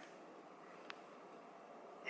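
Near silence: faint room hiss with one tiny click a little under a second in.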